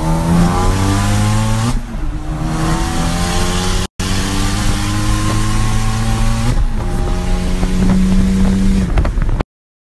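Big-turbo Ford Focus ST's turbocharged engine at full throttle, heard from inside the cabin. Its pitch climbs through each gear, dropping at upshifts about two seconds in and again near seven seconds. The sound drops out briefly just before four seconds and cuts off shortly before the end.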